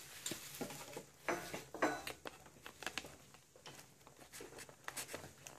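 Faint scattered clicks and taps of small capped Young Living essential-oil bottles being touched and shifted in their cardboard kit box.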